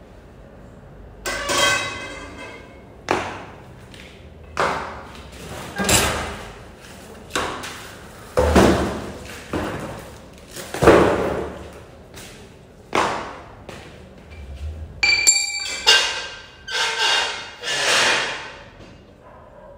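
Metal tube parts of a clothes stand being knocked and fitted together: about a dozen separate clanks, each with a short metallic ring, with a cluster of clear ringing pings about three-quarters of the way through.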